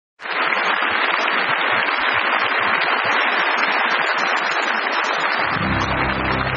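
A dense, even crackling noise that starts abruptly after silence. About five and a half seconds in, accordion music with held chords comes in beneath it.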